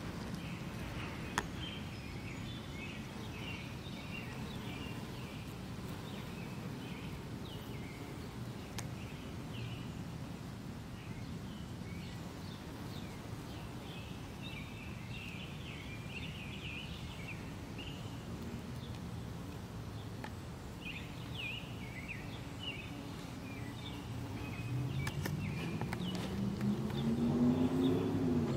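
Outdoor garden ambience: small birds chirping repeatedly over a steady low rumble. Near the end a low droning sound rises in pitch and grows louder.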